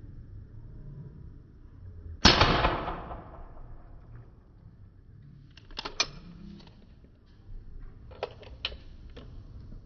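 A single shot from a handgun about two seconds in, with a short fading tail. A few sharp, quieter clicks follow, around six seconds and between eight and nine seconds.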